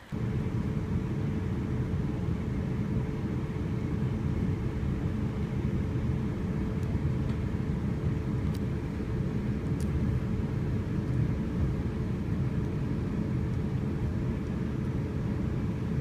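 Passenger train in motion, heard from inside the carriage: a steady low rumble with a constant hum above it, and a few faint clicks.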